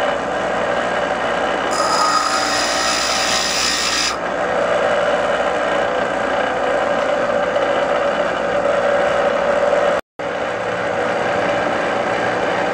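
Baldor bench grinder running steadily with a constant motor hum and wheel whine. About two seconds in, a harsher hiss lasts for a couple of seconds. Near the end the sound cuts out for an instant.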